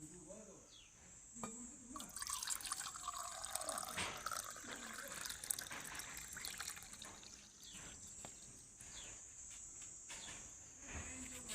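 Water pouring and trickling, starting about two seconds in and thinning out to scattered drips after the middle.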